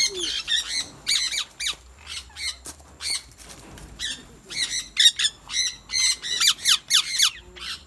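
A flock of small parrots squawking and chattering: many short, quick calls overlapping, growing louder and busier about halfway through.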